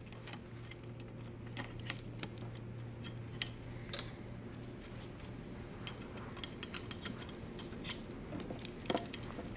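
Scattered small metal clicks and clinks from the handle of a Flexco XP manual staple applicator tool being seated and locked back into position, over a steady low hum.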